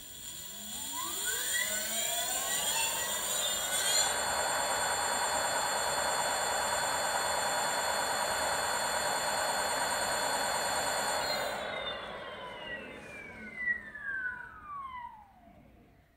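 Leaf 48V 1500W brushless direct-drive hub motor in a 26-inch rear wheel, spinning free off the ground. Its whine rises in pitch over about four seconds and holds steady, then a high hiss cuts off and the whine falls away as the wheel spins down, with a few light knocks near the end.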